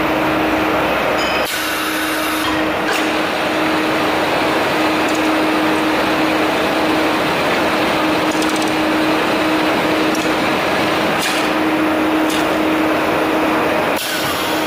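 CNC pipe bending machine running: a steady mechanical hum carrying one constant tone, with a few sharp clicks.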